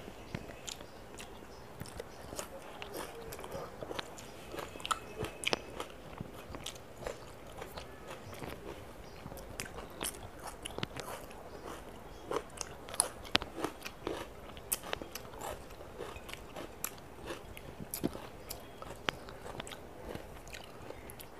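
Close-miked eating: a person chewing mouthfuls of rice and chicken curry eaten by hand, with many short mouth clicks and smacks.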